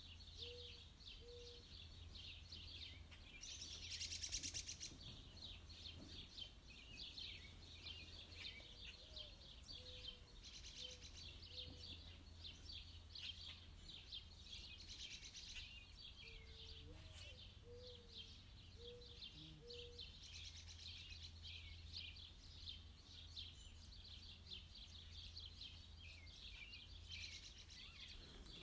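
Faint, continuous chorus of high chirping bird calls, with runs of three or four short low notes now and then and a brief louder rustle about four seconds in.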